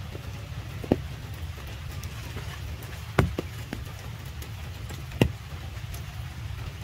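Steady rain falling on puddles and mud, with three louder drops striking sharply close by: about a second in, just after three seconds, and just after five seconds.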